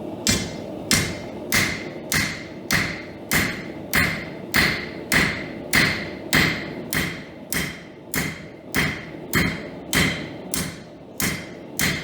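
A hammer striking steel on an anvil in a steady rhythm, about twenty blows at a little under two a second. Each blow has a short metallic ring.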